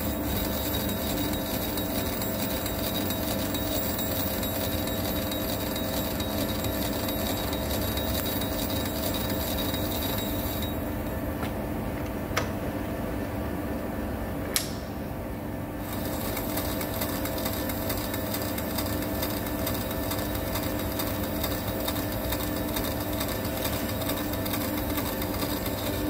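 Metal lathe running with a steady gear whine while a cutting tool turns down the scratched outside of a hydraulic cylinder piston, with a high cutting hiss over it. The hiss drops out for several seconds about halfway through, and two sharp clicks come in that gap.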